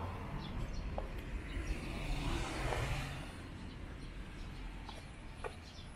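A car passing along the street: its tyre and engine noise swells to a peak about two to three seconds in, then fades away.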